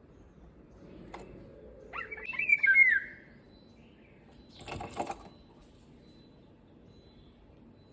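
An Indian golden oriole gives one loud whistled call about two seconds in, lasting about a second, its pitch sliding up and down. A brief rustle follows about five seconds in.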